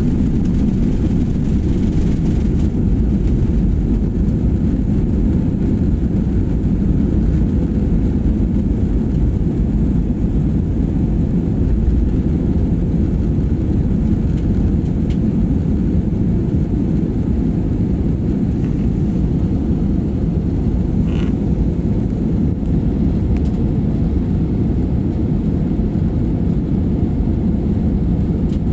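Airliner cabin noise in flight: a steady, low rumble of engines and airflow that holds level throughout.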